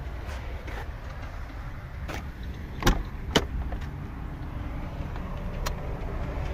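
Fiat Panda II driver's door being opened: a sharp latch click and a second clunk in quick succession, over a low steady rumble. A lighter click follows near the end as the headlight switch on the steering-column stalk is turned.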